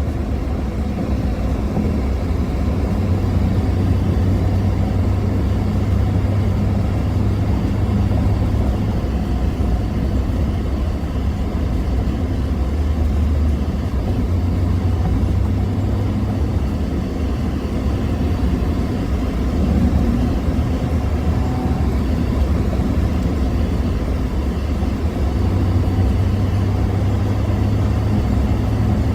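Car driving along the road, giving a steady low rumble of engine and tyres.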